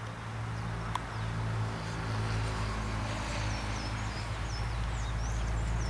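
Outdoor ambience: a steady low hum that slowly grows louder, with one sharp click about a second in and a few high bird chirps in the middle.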